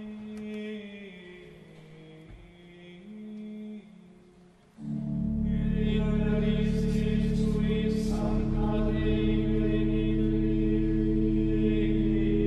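Gregorian chant sung by a men's choir in a reverberant church; about five seconds in, the choir organ comes in loudly with long sustained chords and a deep bass under the voices.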